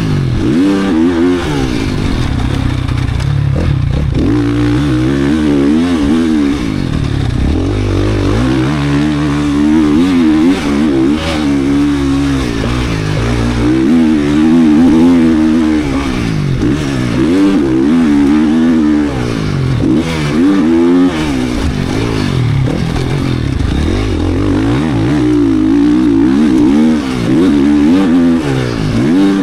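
GasGas 450 motocross bike's built race engine, a single-cylinder four-stroke, being ridden hard: the engine note climbs and drops over and over as the rider accelerates, shifts and rolls off.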